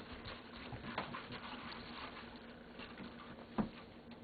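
Faint small clicks and sticky taps of slime being kneaded and pressed by hand, with one sharper tap near the end.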